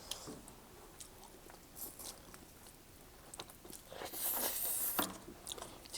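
Quiet close-up eating sounds: chewing and biting on spicy instant noodles, with small wet clicks and smacks, and a louder hissing sound lasting about a second about four seconds in.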